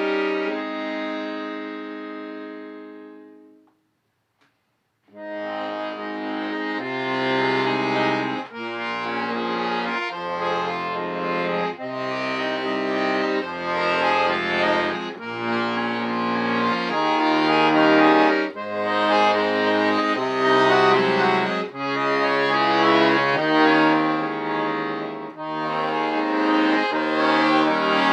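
Solo accordion playing: a held chord dies away, and after a pause of about a second a new passage begins, with chords over changing bass notes.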